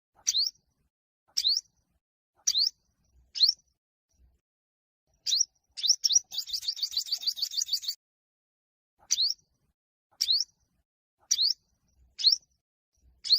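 Olive-backed (yellow-bellied) sunbird singing its contest song: sharp, high, upward-sweeping chirps about once a second, broken about six seconds in by a fast trill of rapidly repeated notes lasting about two seconds.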